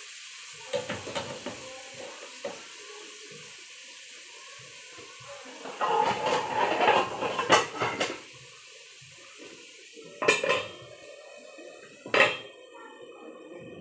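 Metal utensils and cookware clattering at a frying pan: a few light knocks about a second in, a longer run of clatter in the middle, then two sharp clanks, the last as a metal lid is set on the pan.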